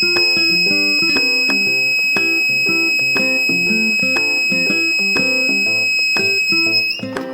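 Electronic buzzer of a light-dependent-resistor (LDR) security alarm sounding one steady, high-pitched continuous tone, the alarm triggered by light falling on the LDR. The tone cuts off suddenly near the end.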